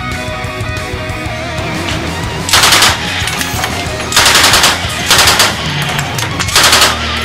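Thompson submachine gun in .45 ACP firing four short fully automatic bursts, each about half a second long. The first burst comes about two and a half seconds in.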